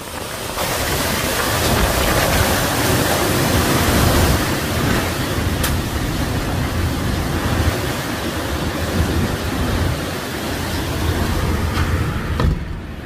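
Hurricane-force wind and rain blowing hard: a loud, steady rush with a heavy low rumble of wind buffeting the phone's microphone.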